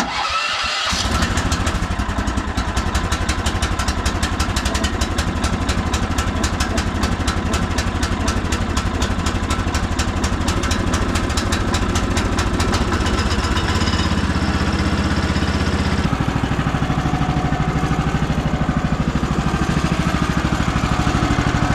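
Woodland Mills HM130 Max sawmill's gasoline engine started with its electric starter, catching within about a second, then idling steadily as it warms up from cold. Its note shifts twice, around 14 and 16 seconds in.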